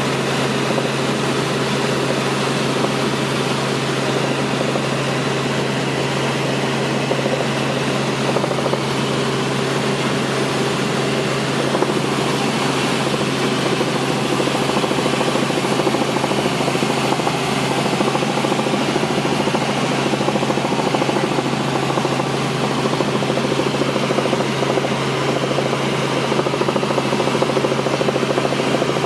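Steady drone of a helicopter in flight, heard from on board: an even low hum under a wide rushing noise that holds level throughout.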